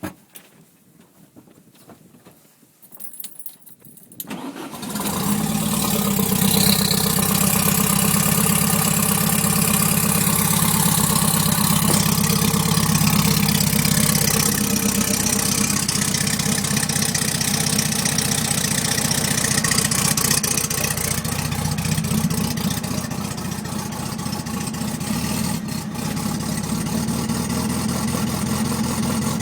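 Volkswagen Beetle engine started about four seconds in after a few quiet seconds, then running steadily at idle, rough and misfiring.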